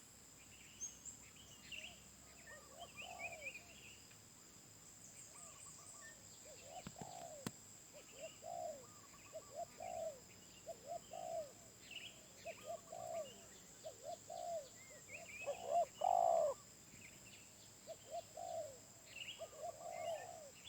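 Wild spotted dove cooing in a long series of low, rounded, repeated coos, loudest about two-thirds of the way through. Smaller birds chirp higher up, over a steady high whine.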